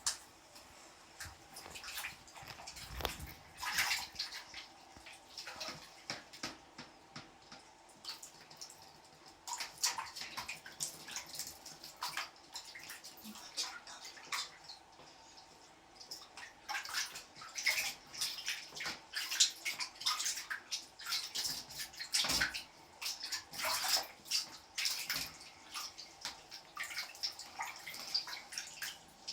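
Water splashing and running in uneven bursts as shampoo is rinsed out of a Persian kitten's coat, with the splashing busier in the second half.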